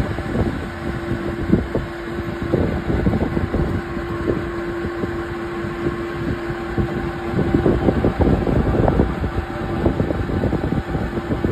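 Street traffic running, with wind rumbling and buffeting on the microphone; a steady hum runs through the first seven seconds or so and then stops.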